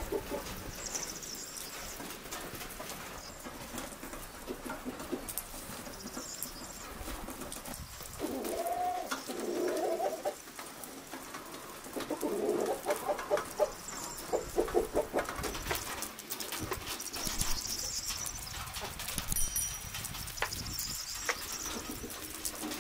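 Domestic pigeons cooing in two bouts of low, pulsing calls around the middle, with scattered high chirps of small birds and light ticking in the background.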